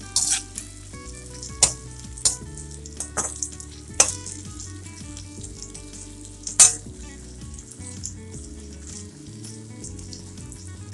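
Sliced onions and green chillies frying in oil and butter in a kadai, a steady sizzle, with a slotted spatula clattering and scraping against the pan now and then, loudest about four and six and a half seconds in. The onions are at the first stage of frying, before they change colour.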